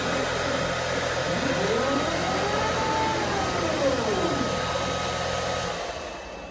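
CNC flatbed cutting table running: a steady airy rush with a low hum and a thin steady tone, and a motor whine that rises and then falls in pitch as the gantry makes a long move. About six seconds in, the rush and hum wind down.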